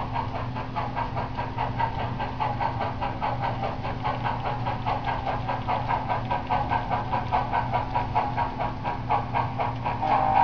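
Model steam locomotive's sound unit chuffing in a quick, even rhythm over a steady low hum as the train runs toward the depot.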